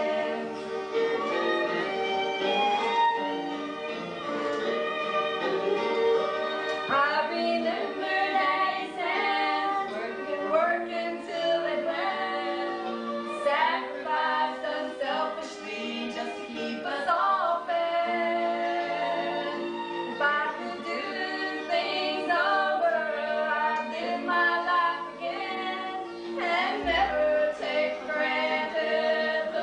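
A girl's solo singing voice over an instrumental accompaniment of held chords.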